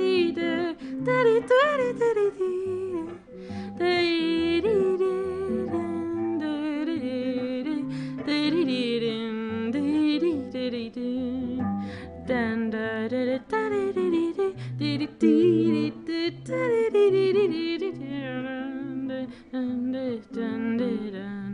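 A voice humming a wordless melody with vibrato over a plucked acoustic guitar: the instrumental and vocal outro of a live singer-songwriter song.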